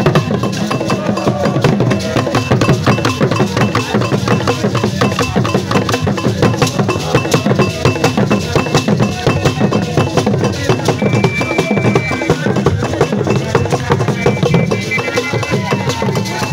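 Vodu ceremonial drumming: drums and other percussion playing a dense, fast, steady rhythm.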